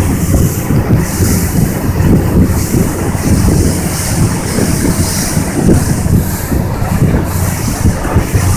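Motorboat under way: a steady, loud rumble of engine and water, with gusty wind buffeting the microphone.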